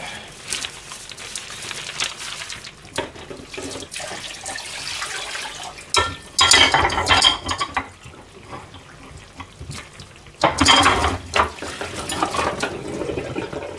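Kitchen tap running twice in short bursts into a stainless steel sink, with clinks of a metal sink strainer basket being cleared of food scraps. Newspaper rustles at the start.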